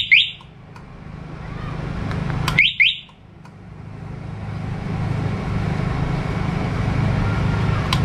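Two-way motorcycle alarm system giving a quick double chirp as a remote button is pressed, then a second double chirp about 2.7 s in. A low, steady rumble swells in after the second chirp and holds.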